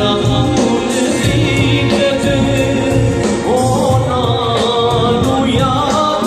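Live worship band music: male voices singing into microphones over electronic keyboard with a steady beat.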